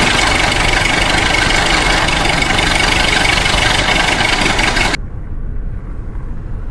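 Tractor engine running loud and rough in deep floodwater as the tractor sinks, mixed with churning water. It cuts off suddenly about five seconds in, leaving a much quieter low rumble.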